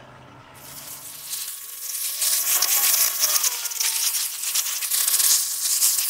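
Water jet from a Giraffe Tools Grandfalls electric pressure washer wand hissing and spattering against concrete landscape blocks as it cleans them. The hiss starts about half a second in and grows louder over the next second or two.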